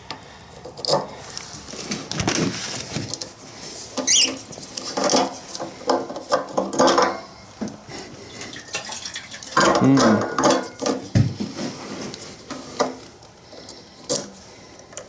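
Light clinks and knocks of hand tools and parts being handled, with stretches of low muttered speech.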